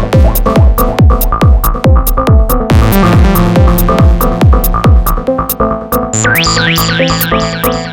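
Live techno played on a drum machine, synthesizer and sampler: a steady four-on-the-floor kick, about two beats a second, with hi-hats. About five seconds in the kick drops out, leaving a held bass note under repeated falling synth sweeps.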